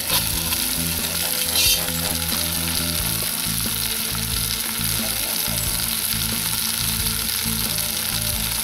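Stew meat sizzling steadily as it browns in bacon grease in a cast iron Dutch oven set on hot coals.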